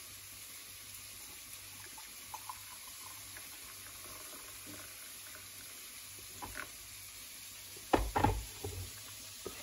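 Hot water poured from an electric kettle into a mug, a faint steady trickle, followed by a short cluster of knocks about eight seconds in.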